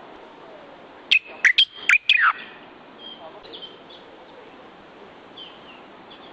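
Common bulbul (the Moroccan bulbul) singing: a quick loud phrase of four or five clear whistled notes about a second in, several sliding down in pitch, followed by a few faint softer notes over a steady background hiss.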